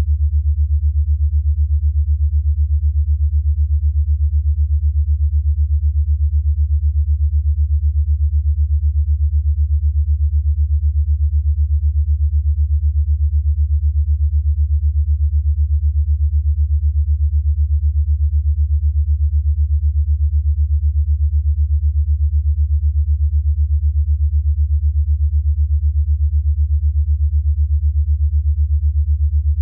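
A low, steady electronic sine tone, pulsing rapidly and evenly in loudness: a synthesized 8 Hz alpha-wave pulsed tone for brainwave entrainment.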